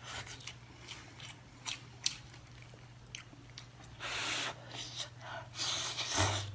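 Close-up chewing and biting of seafood: scattered short clicks, then louder bursts of chewing about four seconds in and again near the end, over a low steady hum.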